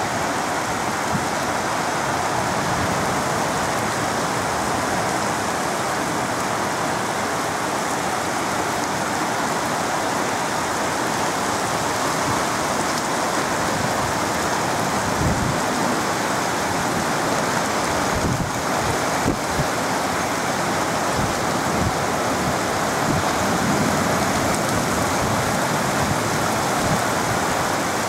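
Heavy tropical downpour falling steadily, a dense even hiss heard through an open balcony window. A few brief low rumbles come past the middle.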